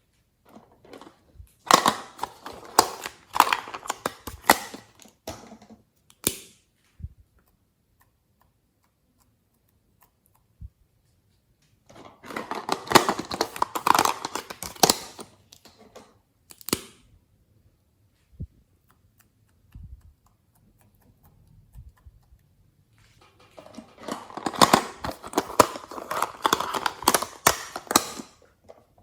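Glossy slime being squeezed, stretched and folded by hand, making a dense run of sticky clicks and crackling pops. It comes in three spells, with quiet pauses between them.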